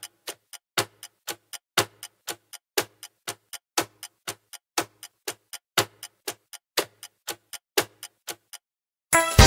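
Clock-tick countdown timer sound effect: sharp ticks about four a second, every fourth one louder, stopping shortly before the end. Music starts right at the end.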